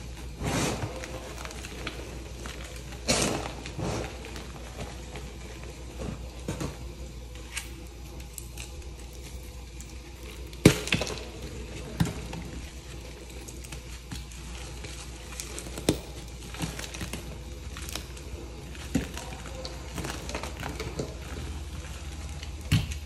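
Hands squeezing and crumbling soft, dried reformed chalk blocks: a gritty, powdery rustle broken by irregular crisp crunches and cracks as pieces break apart. The sharpest crack comes about ten and a half seconds in.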